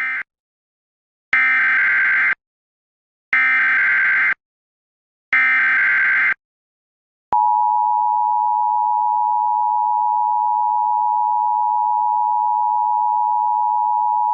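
Emergency Alert System signals: a short digital data burst right at the start, then three one-second screeching SAME header data bursts about a second apart. About seven seconds in comes the steady two-tone EAS attention signal, which holds to the end.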